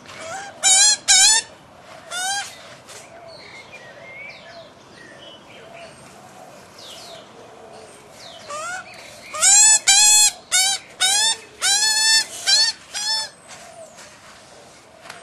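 Young Pacific black ducks calling: loud, short, repeated peeping calls. A few come near the start, then a quick run of a dozen or so from about two-thirds of the way through.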